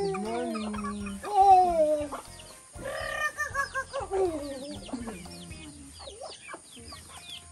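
Chickens clucking and calling, with several drawn-out calls that slide down in pitch.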